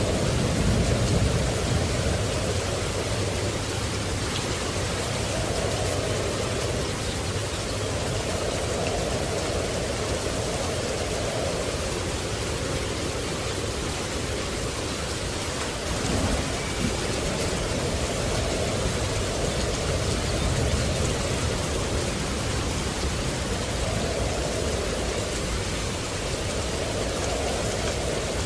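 Steady heavy rain pouring, with a low rumble of thunder that swells about a second in.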